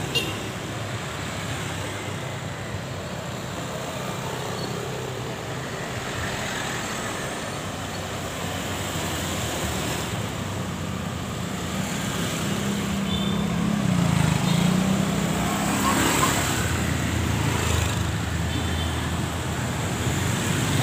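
Street traffic: cars and motor scooters passing along the road, with one vehicle's engine passing close about two-thirds of the way through.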